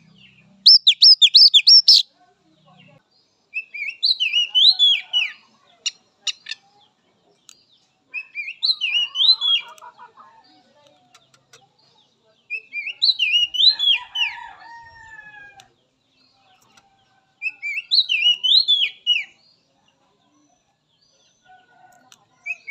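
Oriental magpie-robin (kacer) singing: short phrases of quick, zigzagging whistled notes, repeated about every four to five seconds with pauses between. The first phrase, about a second in, is the loudest and fastest.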